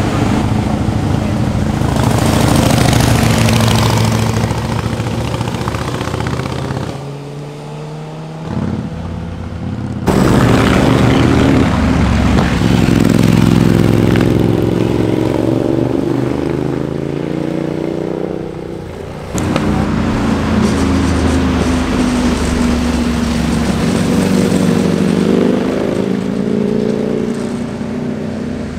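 Motorcycles passing one after another through corners, their engines revving up and down. The sound changes abruptly twice as one pass gives way to the next.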